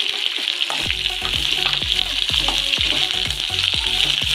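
Sliced onions sizzling in hot oil with popped mustard seeds in a kadai, a steady hiss, while a metal spoon stirs and scrapes them around the pan. This is the start of sautéing the onions after the mustard tempering.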